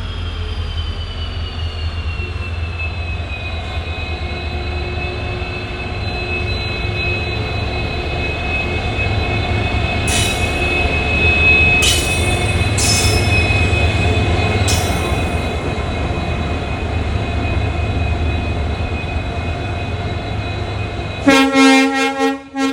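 WDP4D diesel-electric locomotive with a 16-cylinder EMD two-stroke engine, arriving with a steady low engine hum under high whining tones that dip in pitch over the first few seconds. Four sharp clanks come around the middle, and a loud, many-toned horn blast starts near the end.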